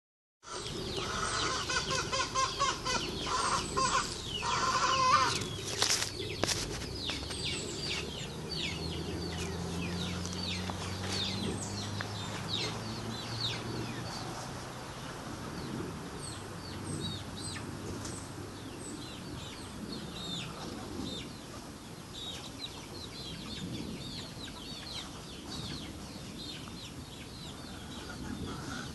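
Chickens clucking and squawking, loudest in the first five seconds, with a sharp knock about six seconds in; after that, many short high chirps keep on.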